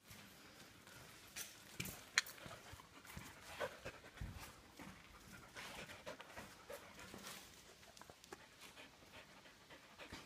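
A dog panting in short, quick, irregular breaths.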